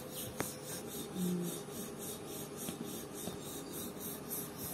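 Wooden rolling pin rolling out roti dough on a round board: a soft, steady rubbing sound, with a faint click just under half a second in.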